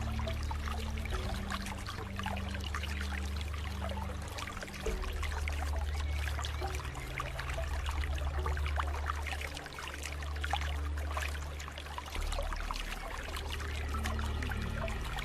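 Water trickling and splashing in a small stream, a steady stream of fine bubbling and dribbling. Underneath runs a low steady hum whose pitch steps to a new note every second or two.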